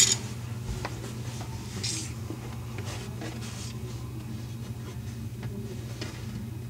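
Faint handling sounds of tightening a faucet's mounting nut and bracket under a sink: a sharp click at the start, then scattered light clicks and scrapes, over a steady low hum.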